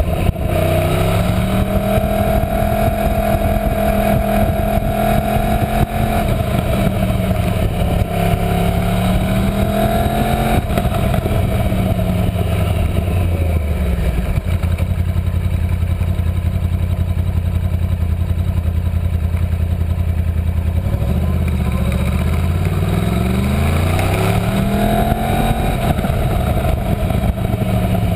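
Yamaha R1 (RN22) crossplane inline-four on its stock exhaust, heard from onboard. It accelerates with rising revs, drops pitch at gear changes and on easing off, holds low steady revs through the middle, then pulls up through the revs again near the end.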